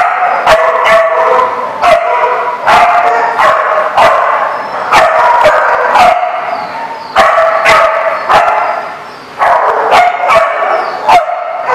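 Several dogs barking and yipping at once in quick, overlapping barks. It is a nonstop din of play barking from a group of dogs at rough play.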